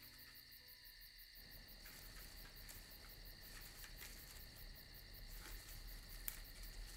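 Crickets chirping faintly: a steady, high, evenly pulsing trill.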